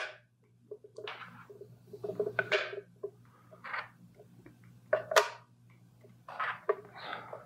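Hands handling a plastic scale-model hull and small model parts: irregular clicks, taps and rustles as the pieces are set in place and the model is turned over, over a faint steady low hum.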